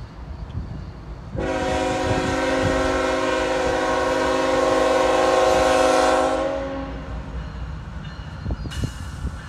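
A CSX Tier 4 GE freight locomotive's air horn sounds as it approaches: one long chord of several notes for about five seconds, starting about a second and a half in, then a shorter, fainter blast near the end. The diesel engine's low rumble runs underneath.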